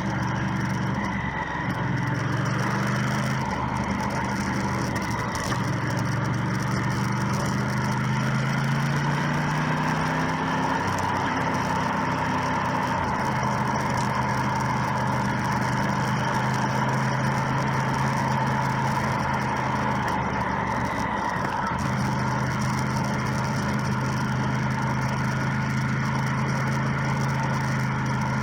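Motorcycle engine running under way with steady road and wind noise. The engine note rises early on and again about ten seconds in, dips briefly about two-thirds of the way through, then holds steady at cruising speed.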